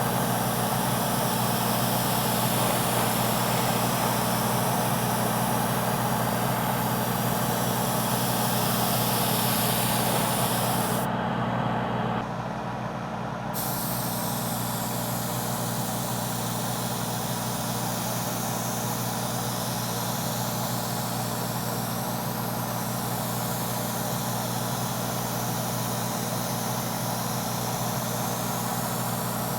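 Airbrush spraying paint, a steady hiss over the low steady hum of its air compressor. The hiss drops a little about twelve seconds in.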